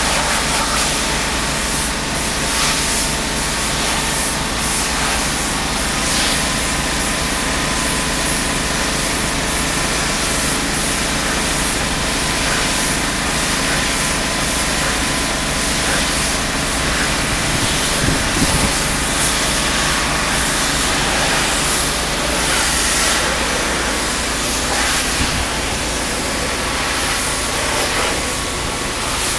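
Pressure-washing equipment running steadily: an engine's drone under an even hiss of high-pressure water spray on a stone wall.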